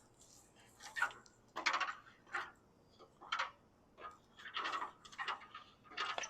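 A run of irregular short clicks, knocks and scrapes, about seven of them, of objects being handled and moved about during hands-on work.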